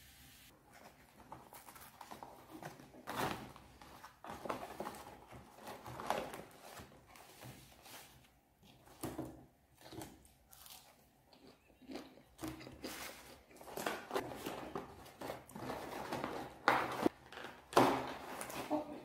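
Paper takeout bags and cardboard food boxes rustling and crinkling as they are opened and handled, in irregular bursts, loudest near the end.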